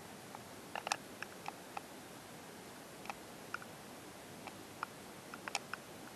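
Faint steady hiss with scattered, irregular sharp ticks and clicks, a few of them close together. No train sound stands out.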